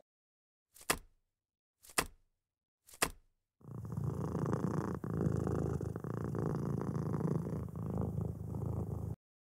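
Three short clicks about a second apart, then a domestic cat purring steadily for about five and a half seconds before it cuts off.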